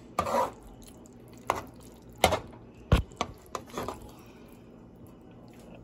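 Metal tongs clacking and scraping against a pan while tossing fettuccine in a thick Alfredo sauce: a short scrape near the start, then a few sharp clacks, the loudest about three seconds in, ending about four seconds in.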